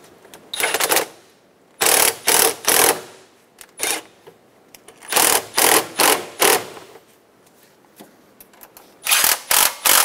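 Ratchet wrench clicking in short rattling bursts on its back-strokes, in runs of three or four with pauses between, as the intake hose clamps are tightened down.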